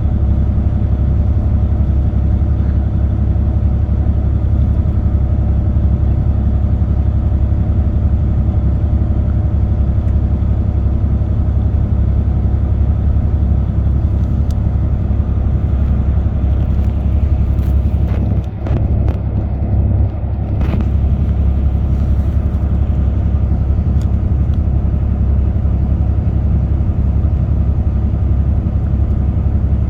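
Car travelling at expressway speed: a steady, loud low rumble of road and engine noise, with a brief dip and change in the sound about eighteen to twenty-one seconds in.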